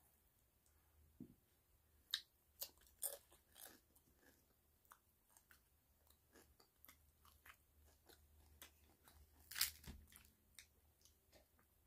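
Close-up chewing of a crisp fried tortilla tostada shell: quiet, irregular crunches, with sharper bites about two and three seconds in and the loudest near the end.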